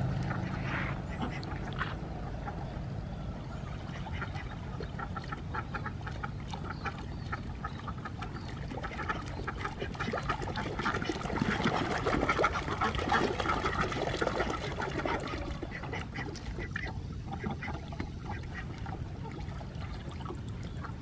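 A flock of domestic ducks quacking as they swim and paddle through shallow water, with many overlapping calls that swell to a busy chorus about halfway through. A low steady hum runs underneath.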